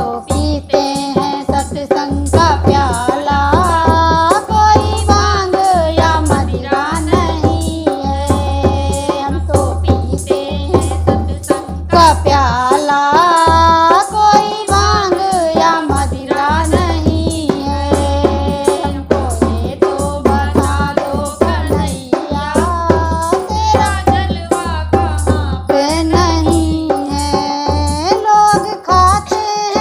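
A Hindi devotional folk song (Krishna bhajan) sung to a steady, driving beat of hand drums and percussion.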